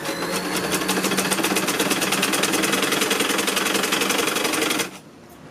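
Sewing machine running at speed with a fast, even stitching rhythm, sewing the zip and lining onto a jacket front, then stopping abruptly near the end.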